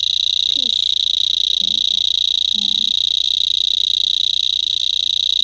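Cicada (kuliglig) giving a loud, steady, high-pitched buzz like a jackhammer. It is headless and dead, yet still calling.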